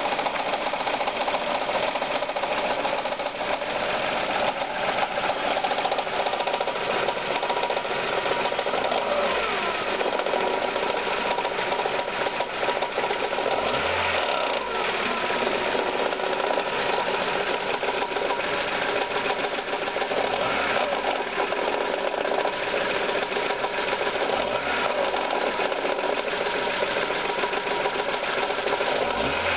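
Ford Escort ZX2's 2.0-litre Zetec four-cylinder engine running with a rapid, steady knock. The knock is there even with the engine at operating temperature, not just at start-up.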